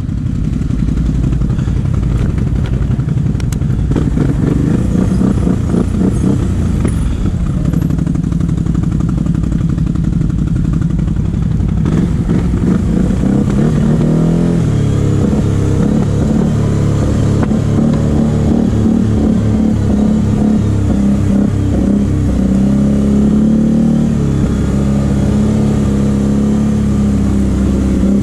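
Quad ATV engine running while riding along a rough dirt forest trail, uneven at first and then settling into a steadier engine note about halfway through.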